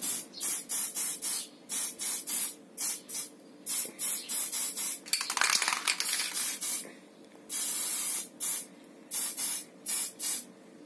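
Aerosol can of spray primer fired in quick short hissing bursts, a couple a second, with two longer sprays of about a second each in the second half.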